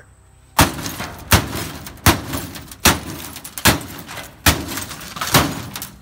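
Seven hard hammer blows, about one every 0.8 s, from the hammer head of a Ridge Runner axe/hammer tactical multitool, smashing the broken plastic remains of a coffee machine.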